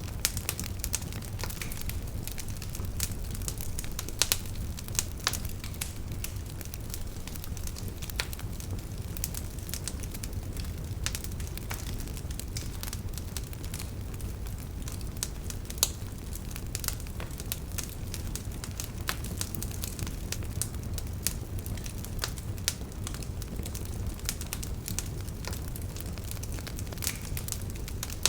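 Wood campfire burning, with a steady low rumble of the flames and frequent irregular sharp crackles and pops from the burning wood.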